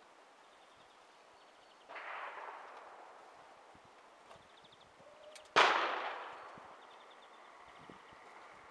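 A single loud rifle shot from a scoped 5.56 NATO rifle about five and a half seconds in, cracking sharply and echoing down the range as it fades over a second or so. A fainter shot sounds about two seconds in.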